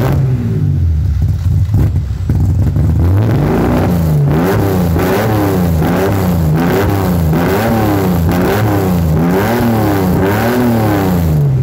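Chevrolet Caravan Diplomata's ethanol-fuelled 4.1-litre straight-six idling, then revved in quick blips about once a second from about three seconds in, each blip rising and falling in pitch.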